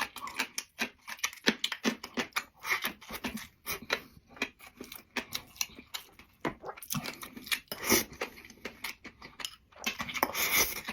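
A person eating close to the microphone: irregular crunching and chewing clicks from dried tofu rolled around raw scallion.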